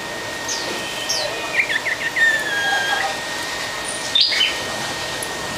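Small caged songbird chirping and calling in scattered short whistled notes, with a quick run of notes and a longer held note about two seconds in, and its loudest chirp about four seconds in.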